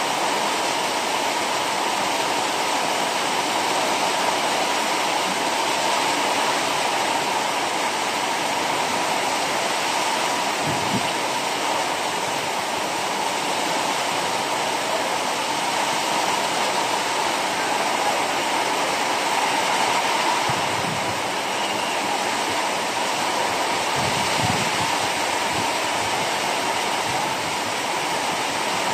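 Torrential rain pouring steadily onto a wet paved street, an even, unbroken hiss of heavy downpour.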